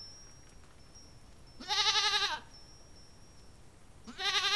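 Goat bleating: one wavering bleat about two seconds in, and another starting near the end.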